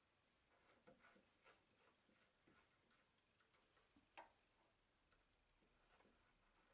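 Near silence with faint scattered clicks and light metal taps, the sharpest about four seconds in, from swapping a centre drill for a number 38 drill in the machine's chuck.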